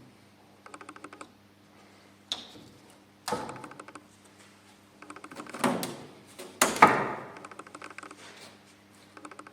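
Several short runs of rapid fine clicking, broken by a few sharp knocks of small wooden pieces being handled and set against a frame; the loudest knock comes about two-thirds of the way through.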